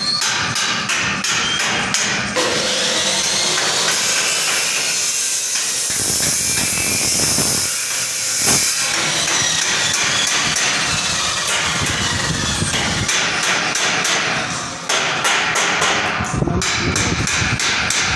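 Loud metalwork on a steel-tube wall-cladding frame: a dense run of rapid clicks over a steady high hiss, with the hiss heavier for several seconds in the middle.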